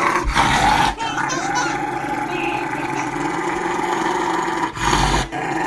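A dog growling steadily, with a short break near the end.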